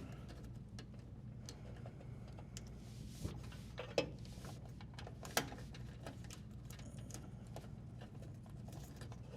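Faint clicks and light knocks of wires and wire nuts being handled and pushed into a dishwasher's electrical junction box, with three sharper taps around three to five and a half seconds in, over a low steady hum.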